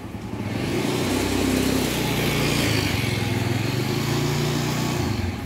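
A motorcycle engine running close by. It grows louder about a second in, holds steady, and drops away near the end.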